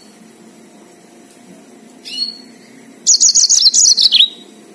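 Yellow-fronted canary (Mozambique canary) singing: a short upslurred note about two seconds in, then a loud, rapid trilled phrase of high wavering notes lasting just over a second near the end.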